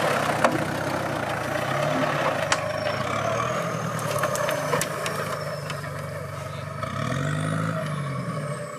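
Off-road 4x4's engine running as it drives, revving up and settling again near the end, with occasional sharp knocks and clicks.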